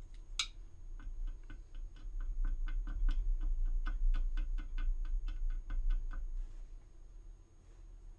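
A small brush tip dabbing filler powder into a seam on a resin model part: a fast, even run of light taps, about five a second, for several seconds, stopping about a second and a half before the end. One sharper click comes just before the run starts.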